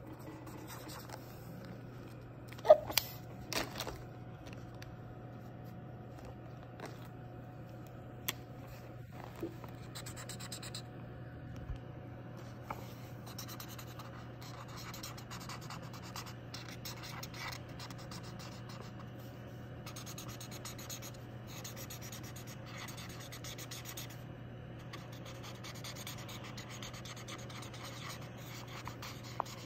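Felt-tip marker scribbling on colouring-book paper in quick back-and-forth scratchy strokes. A few sharp clicks about three seconds in are the loudest sounds.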